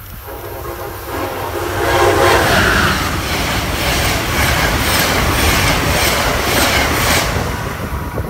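Amtrak passenger train sounding its horn as it approaches, then rushing past at speed, its wheels clacking over the rail joints about two or three times a second. The horn chord ends about two seconds in, and the passing noise fades near the end.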